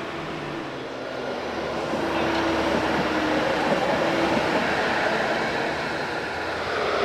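Low-floor electric tram running along its track, the rolling wheel and motor noise growing louder about two seconds in and then holding steady.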